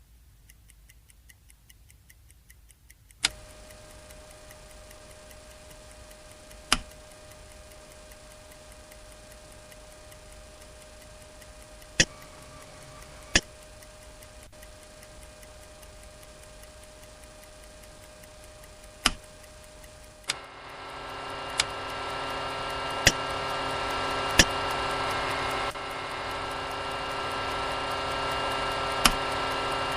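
Douglas DC-3 interior: faint ticking, then about three seconds in a steady electrical hum comes on, with sharp clicks of switches every few seconds. About twenty seconds in, a much louder drone with several steady tones starts and builds over a few seconds, as the aircraft's starting systems spin up.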